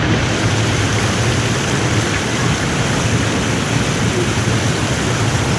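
Waterfall rushing: a loud, steady wash of water noise that starts suddenly.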